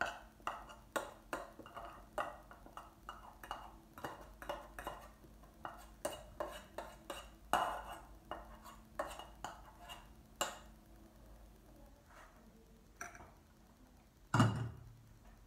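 A utensil scraping the last oat porridge out of a metal saucepan: a run of quick scrapes and taps against the inside of the pan, about two or three a second, that thins out after about ten seconds. A single louder knock comes near the end.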